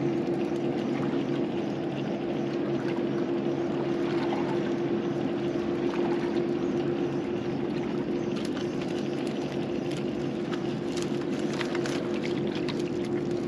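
A boat's motor running with a steady, even hum. In the second half there are light clicks from a fishing reel being wound in on a hooked fish.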